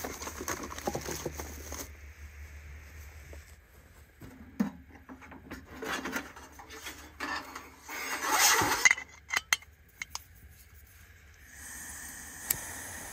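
Metal clinks, knocks and scrapes as the steel parts of a Fitinhot 2-in-1 camp stove are handled and set up, the loudest a scraping rustle of about a second near the middle. Near the end a steady hiss sets in.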